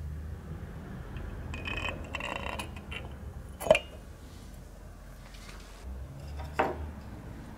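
Metal parts of a Velosolex rear wheel hub clinking and knocking as they are handled: a run of light clinks, then a sharp metallic knock a little before the middle and a second, softer knock near the end.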